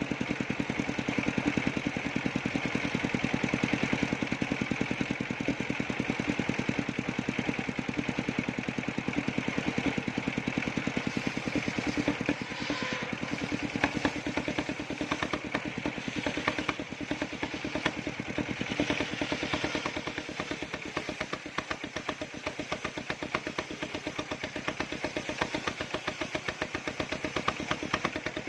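Engine of a circular sawmill rig running steadily with a rapid, even firing beat.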